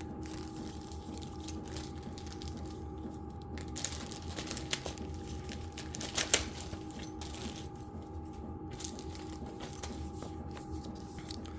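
Paper and plastic packaging rustling with a few light clicks as parts are handled, over a steady background hum and low thump from a running diesel heater.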